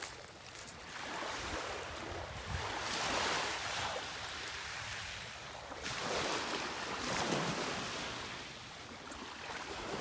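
Small Gulf waves lapping and washing up on a shell-and-sand beach, swelling and fading a few times.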